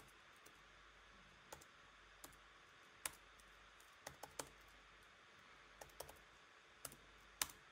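Faint, irregular keystrokes on a computer keyboard, a few keys at a time, with short pauses between.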